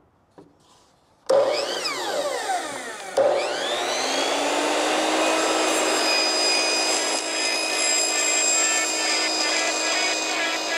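RIDGID compound miter saw cutting 4-inch PVC drain pipe. The motor starts with a whine about a second in and winds down. It starts again about three seconds in, rising in pitch, then runs steadily as the blade goes through the pipe.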